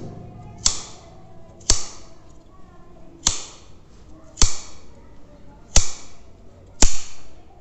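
Large steel tailoring shears snipping notches into the seam allowance of trouser fabric: six sharp snips, about one every second or so.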